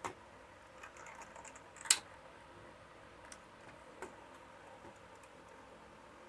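Light clicks and taps of fingers handling the plastic pulleys, tuning drum and dial cord inside an opened transistor radio cabinet, with one sharper tap about two seconds in and a smaller one about four seconds in.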